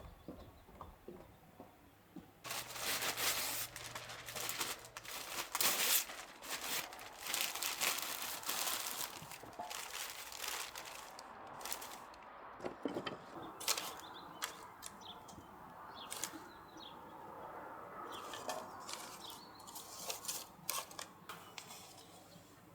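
Close, uneven crinkling and rustling starting a couple of seconds in, with scattered sharp clicks, loudest in the first half and thinning out toward the end.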